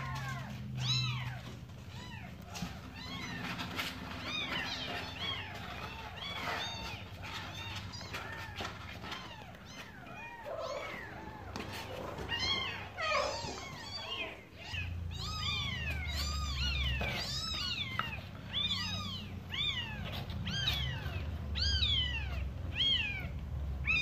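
Newborn kittens mewing: a long run of short, high-pitched cries that rise and fall, mixed with the mother cat's lower meows. The cries come thicker and louder in the second half.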